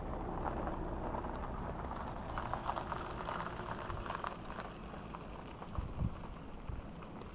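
Shallow seawater lapping and bubbling among rocks and seaweed at the shoreline, a steady crackling, fizzy wash, with a low wind rumble on the microphone and a low bump about six seconds in.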